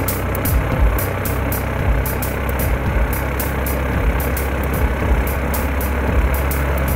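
Cessna 150's four-cylinder Continental O-200 engine and propeller running at low taxi power, a steady drone, with irregular low thumps over it.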